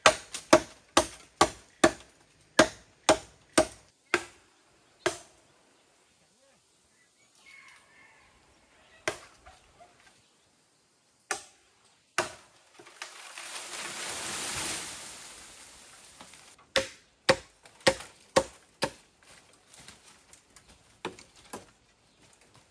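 Machete chopping bamboo: sharp strikes at about two a second, a pause with a few single strikes, a swell of noise lasting a few seconds in the middle, then another run of chops.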